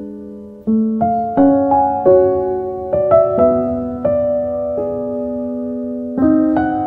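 Background piano music: a slow, gentle melody of single struck notes, each left to ring and fade, with a longer held chord in the middle.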